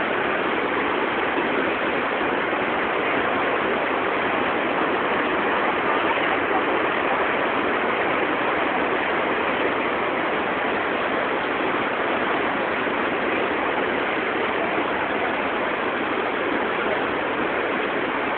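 Steady rushing of river water: an even hiss that holds at one level with no breaks.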